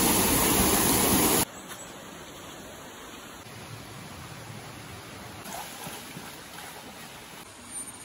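Loud, steady rush of a waterfall plunging into its pool, cut off abruptly about a second and a half in. A much quieter, steady wash of a small rocky stream follows.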